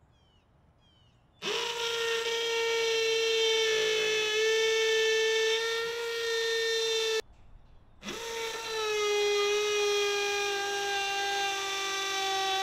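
Cordless drill running into a plywood window cover in two long, steady whines, each about five to six seconds, with a short pause between. The pitch sags slightly near the end of the second run.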